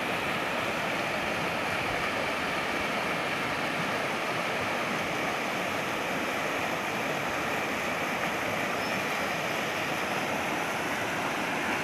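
Muddy floodwater from a rain-swollen stream rushing and churning through and past concrete culvert pipes, a steady, even rush of water.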